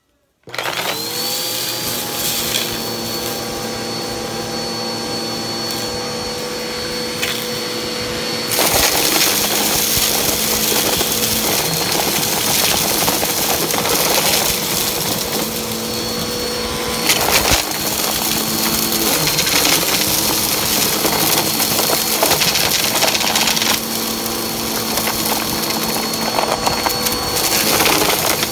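Upright vacuum cleaner switched on about half a second in, its motor whine rising and settling to a steady pitch. After about eight seconds it gets louder and rougher as the nozzle pushes into a pile of lint and small hard debris, with a crunching rattle and occasional clatters as bits are sucked up.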